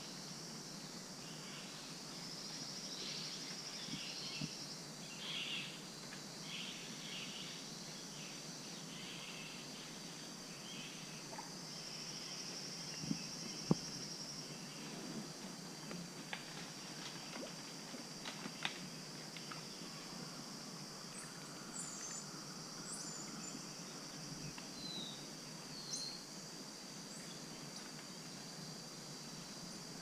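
Amazon rainforest ambience: a steady high insect drone that swells into pulsing trills twice early on. Scattered high bird chirps and short whistles come in the second half, and there are a couple of sharp snaps about halfway through.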